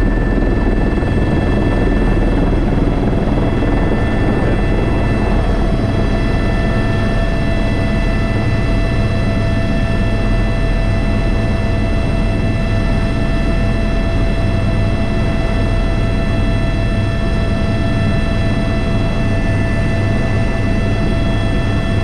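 Airbus H125 (AS350 B3) helicopter running steadily in flight, heard from inside the cockpit: a constant low drone from the rotor with steady high-pitched turbine whine tones over it.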